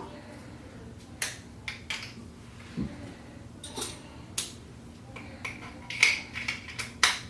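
Scattered small metal clicks and taps of a nut driver working the nuts on a clothes dryer's power-cord terminal block.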